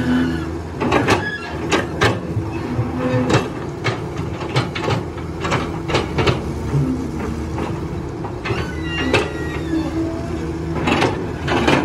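Excavator's diesel engine running steadily under work, with repeated sharp knocks and clanks as it digs.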